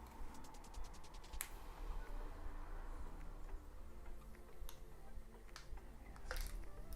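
Packaging being handled: a quick run of fine ticks near the start, then a few sharp single clicks. Soft background music plays under it.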